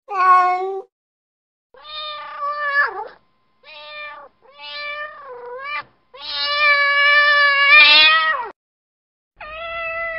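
A domestic cat meowing in sad, crying calls: six meows separated by short silences, the longest drawn out for about two and a half seconds, the last one beginning near the end and still going.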